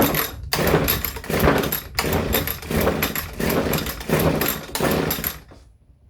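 Recoil starter cord of an Echo SRM-230 two-stroke string trimmer yanked about seven times in quick succession, the engine cranking over each time without firing: its ignition switch is still set to off.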